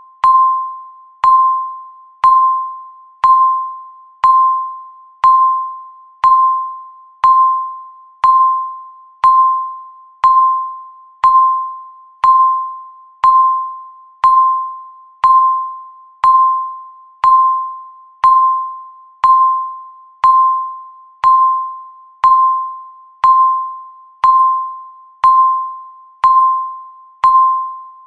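Countdown timer beeping once a second: a single high tone, each beep starting sharply and dying away before the next.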